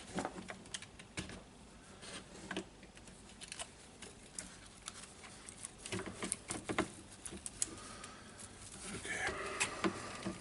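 Scattered light clicks and taps of plastic saw-housing parts and wiring being handled and fitted during reassembly, with a short scraping rustle near the end.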